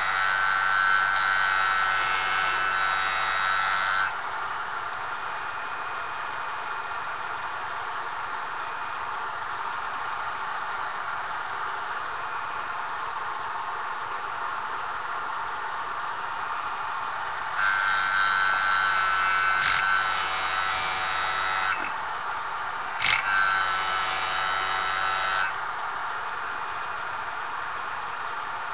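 Jool Tool sharpener's motor running steadily, with loud spells of grinding as a tool edge is held to its abrasive disc. The grinding stops about four seconds in, then comes back twice later on: a spell of about four seconds, then, after a sharp click, a shorter one of about two seconds.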